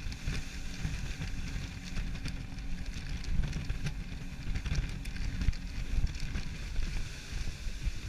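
Wind buffeting the GoPro microphone on a speeding rigid inflatable speedboat, an uneven low rumble, over the steady hum of the boat's engine and the rush of water past the hull.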